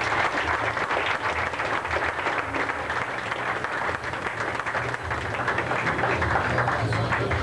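Crowd applauding: a dense, steady patter of many hands clapping over a low hum.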